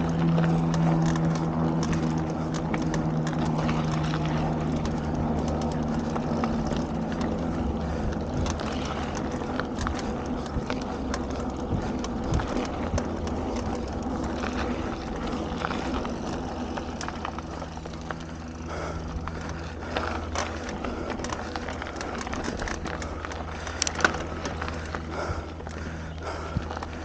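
Mountain bike rolling down a dirt forest trail: steady tyre and wind rumble on the helmet camera's microphone, with the bike's frame and chain rattling and clicking over bumps and roots. One sharp knock near the end.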